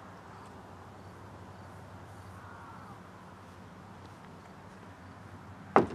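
Quiet outdoor background, then near the end a sudden loud knock on the plastic door of a portable toilet.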